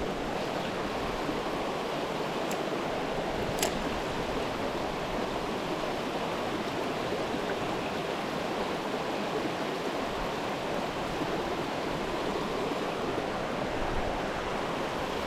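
Mountain stream water rushing and babbling steadily over rocks, with two faint clicks a few seconds in.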